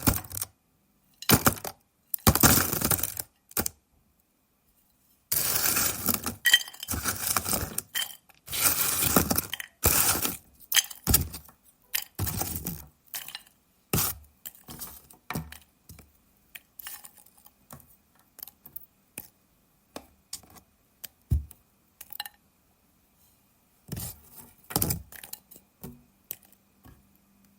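French fries dropping into a bowl: several bursts of rattling clatter, the longest in the first ten seconds, then shorter and sparser drops that thin out to scattered single taps.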